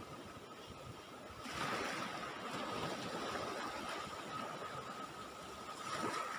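Surf washing onto the shore, with a swell of wave noise about a second and a half in and another near the end.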